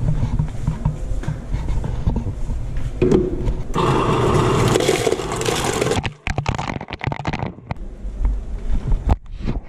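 Ice machine dispensing ice into a plastic bucket: a dense rush of clattering cubes for about two seconds, a few seconds in. Scattered knocks and clicks follow as the bucket is handled.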